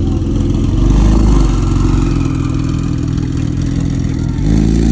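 Porsche 911 GT2 RS twin-turbo flat-six pulling away at low speed, with a small rise in revs about a second in and another near the end.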